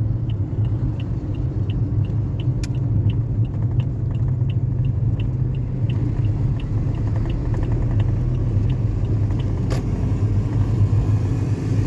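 Inside a moving car, a steady low drone from the engine and road. Over it the turn-signal indicator ticks about three times a second, then stops about nine and a half seconds in, followed by a single sharp click.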